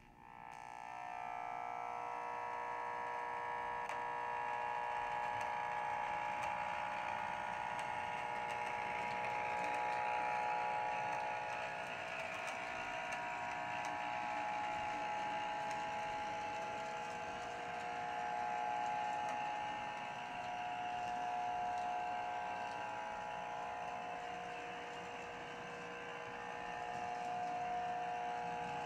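HO-scale brass Union Pacific FEF-1 4-8-4 locomotive model running on track: its frame motor and gearing whir steadily, mixed with a buzzing whine of feedback from the model's unused PFM sound speaker. The sound comes up quickly just after the start, then runs on with slow swells in level.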